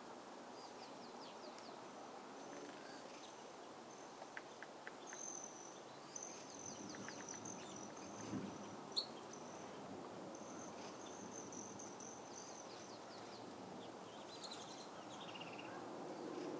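Faint outdoor ambience: small birds chirping in short high trills, over a thin high buzz that comes and goes. Two sharp clicks, about four and nine seconds in.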